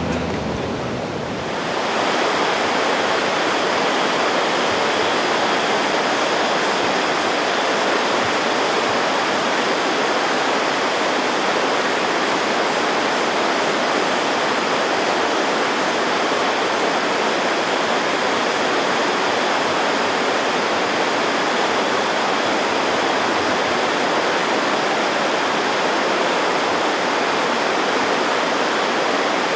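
Steady, loud rush of fast-flowing river water, a cascade or waterfall close by, coming up about two seconds in.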